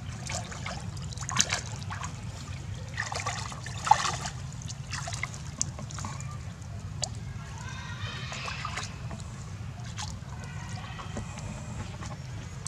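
Water splashing and sloshing as young long-tailed macaques swim and paddle in a shallow muddy pool, in irregular bursts with one sharp splash about four seconds in.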